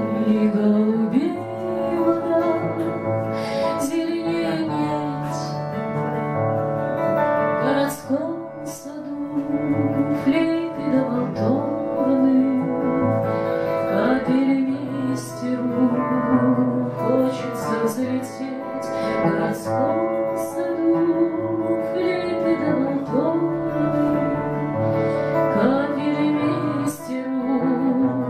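A woman singing a Russian bard song, accompanying herself on an acoustic guitar.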